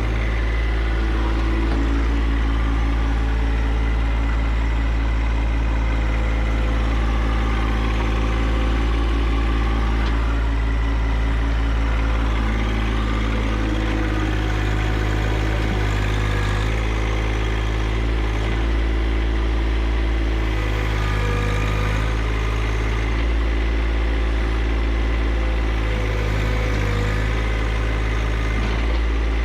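John Deere 1025R compact tractor's three-cylinder diesel engine running steadily, its note shifting slightly every few seconds.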